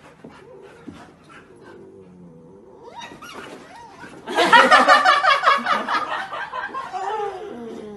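A puppy's loud, high-pitched, wavering yelp-howl that breaks out about four seconds in, as one puppy paws at another, lasts about three seconds and tails off lower near the end.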